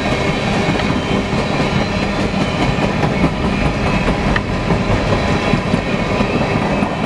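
Empty coal hopper cars of a freight train rolling past at speed, a loud, steady rumble of wheels on rail.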